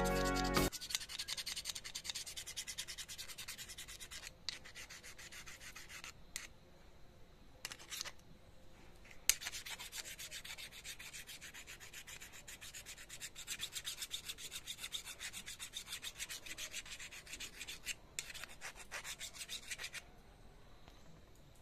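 A flat steel hand file is rubbed rapidly back and forth along the blade of a pair of secateurs, scraping rust off the metal. The strokes stop briefly a few times. Background music cuts off just after the start.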